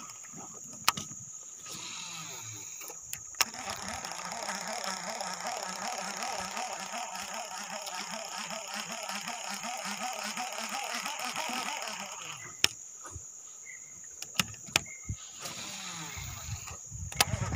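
Baitcasting reel being cranked to retrieve a lure, a rhythmic gear whirr lasting about ten seconds. Sharp clicks come near the start and several more near the end.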